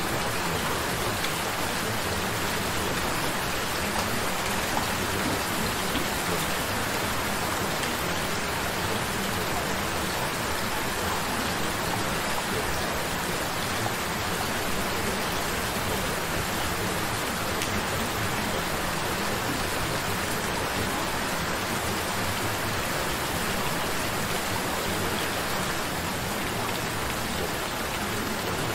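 Steady rain falling, an even, unbroken hiss of drops with no changes.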